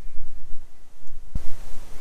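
Uneven low rumble of wind buffeting the microphone, with one dull thump about one and a half seconds in, after which a faint hiss comes up.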